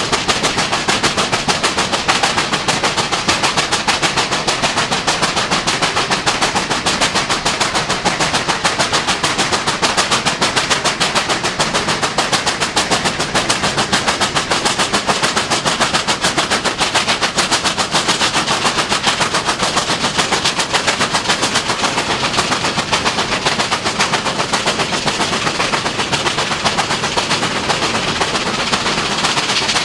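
NSW 38 class 4-6-2 Pacific steam locomotive working hard, its chimney exhaust beating in a rapid, even rhythm that holds steady throughout.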